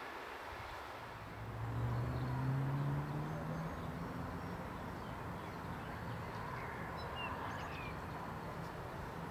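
A distant engine note rises in pitch for about two seconds, starting about a second in, then settles into a steady low hum over the outdoor background. A few faint bird chirps come near the end.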